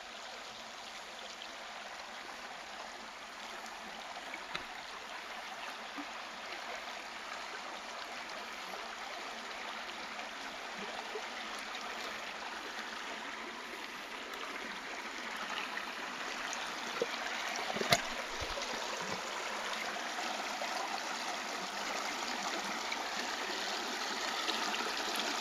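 Creek water flowing in a steady trickling rush that grows gradually louder. A single sharp click sounds about three quarters of the way through.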